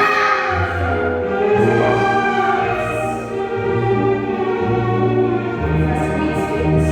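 Orchestral music with a choir singing long held chords over a slowly stepping bass line.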